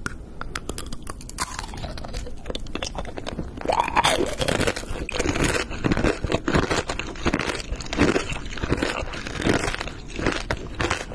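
Close-miked crunching and chewing of candied strawberries (tanghulu), the hard sugar shell cracking between the teeth. Light sharp crackles at first, then loud, dense crunching from about four seconds in.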